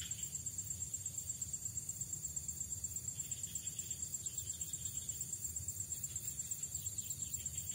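A high-pitched insect trill with a fast, even pulse, over a low rumble.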